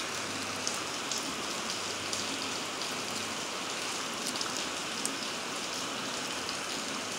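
Steady rain-like hiss, with a few faint clicks as a knife pries the thin steel E-laminations out of a small transformer core.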